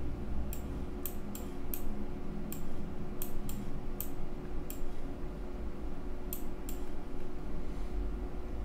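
Sharp, irregular clicking at a computer desk: about a dozen short clicks at uneven intervals over the first seven seconds, over a low steady hum.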